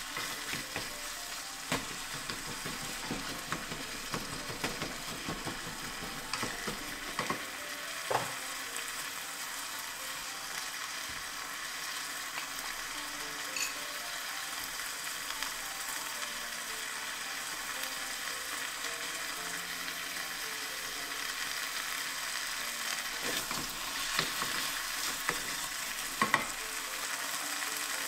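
Pork, onion and chopped tomato sizzling steadily in a small pot, with a wooden spatula stirring and knocking against the pot over the first several seconds. There are a few more knocks near the end.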